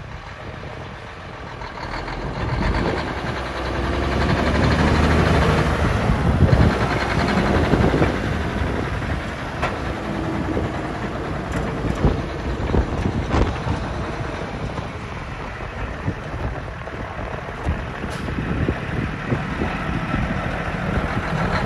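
Diesel engine of a 1985 Mack R688ST grain truck idling steadily, louder from a couple of seconds in, with a few sharp knocks over it.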